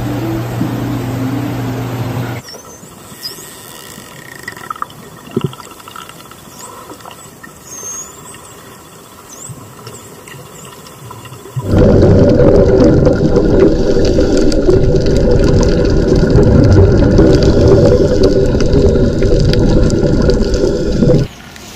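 A low steady hum, then quiet underwater ambience with a few high, gliding chirps from dolphins and a couple of sharp clicks. About twelve seconds in, a loud, even underwater rush of moving water and bubbles starts, and it cuts off suddenly near the end.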